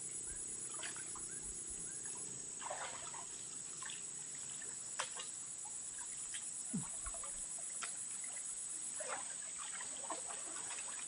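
Pond water sloshing in scattered short splashes as people wade chest-deep and work a fishing net, over a steady high-pitched insect drone.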